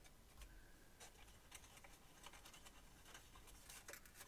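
Faint rustling and light clicks of cardstock packaging being handled and pressed, heard against near silence.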